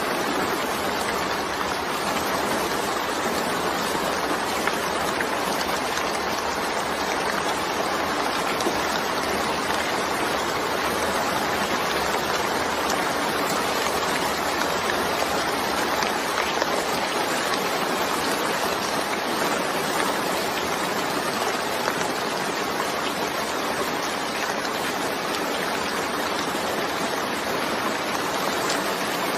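Steady rainfall, an even unbroken hiss with no separate drops or thunder standing out.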